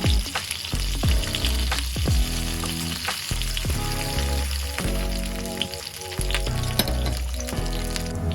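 Food sizzling in a hot pan or on a grill, a steady hiss, under background music with a steady beat.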